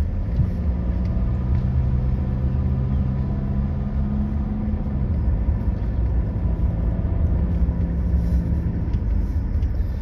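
Car driving along, heard from inside: a steady low rumble of engine and road, with a low engine hum whose pitch shifts about five seconds in.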